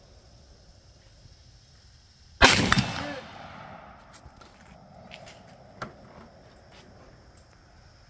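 A single rifle shot from a lightweight competition rifle about two and a half seconds in, its report trailing off over about a second, then a short, sharp click a few seconds later.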